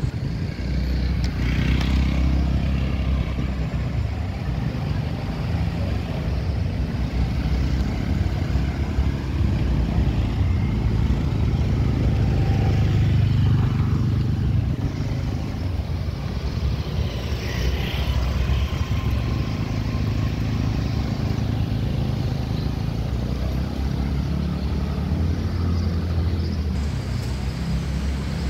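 Street traffic: motor vehicles and motorcycles running close by, a steady low rumble that swells for a few seconds around the middle.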